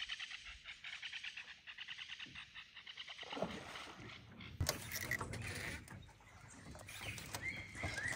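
A rapidly pulsing animal call repeating several times a second, then a sharp knock about halfway through followed by rustling noise and a thin high tone near the end.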